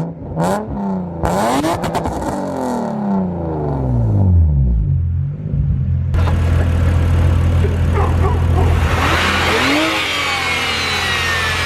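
Car engine being revved several times, its pitch climbing and falling, then settling to a steady idle hum before more revving near the end.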